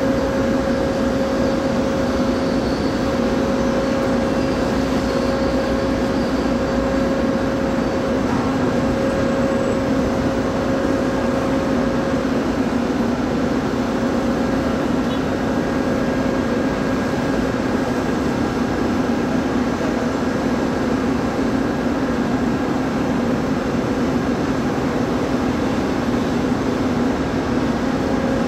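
Steady, loud machinery drone with a constant low hum, joined by a higher steady tone that drops out about twelve seconds in.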